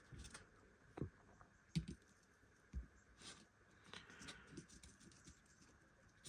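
Faint, scattered clicks and light knocks, a few separate ones, from small model locomotive parts being handled on the workbench.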